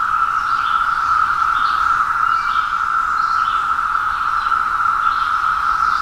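Massed chorus of Brood X periodical (17-year) cicadas: millions of males calling together to attract females, merging into one loud, steady, unbroken drone.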